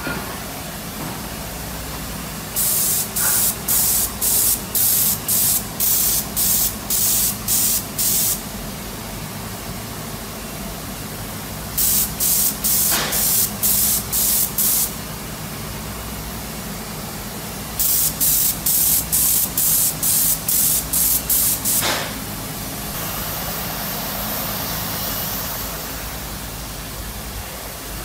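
Spray gun spraying two-component polymer coating onto a steel pipe in short hissing bursts, about two a second, in three runs, with a softer, steadier hiss near the end. A steady low hum runs underneath.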